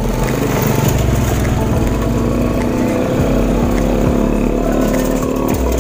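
Small motorcycle engine running steadily while moving along a street.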